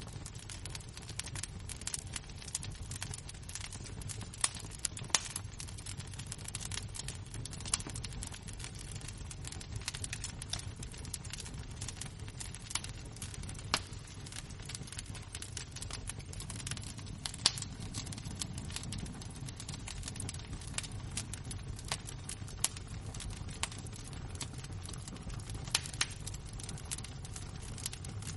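Burning embers and wood crackling: a steady scatter of small pops and snaps, with a few sharper cracks, over a low steady rumble.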